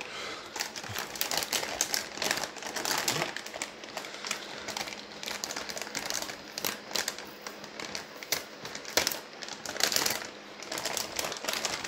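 Plastic anti-static bag around a graphics card crinkling and rustling in irregular crackles as hands handle it and pull it open.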